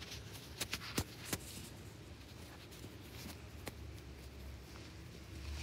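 Handling noise from a phone moved about against clothing and a couch: soft rubbing and scraping with a few sharp clicks and knocks, mostly in the first second and a half and once more near the end.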